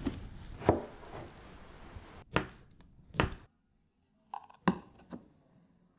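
Kitchen knife chopping lettuce on a cutting board, a few separate strokes. After a sudden drop in background noise about halfway, a few lighter knocks follow.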